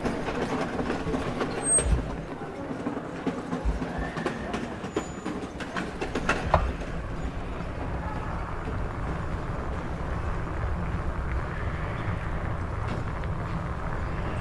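Bicycle rolling over a rough street, rattling with a steady low rumble. A few sharp knocks come in the first half, and the rumble evens out after that.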